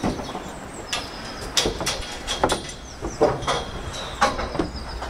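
Irregular sharp knocks and clatter from work on a building-site scaffold, about one or two a second, over a low steady rumble.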